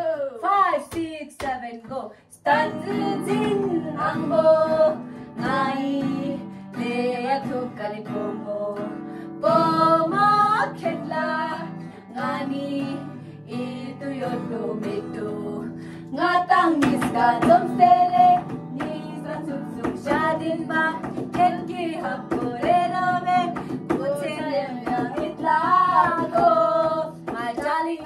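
Women singing a song to a strummed acoustic guitar, with a cajon beating along in the second half. The guitar comes in about two seconds in.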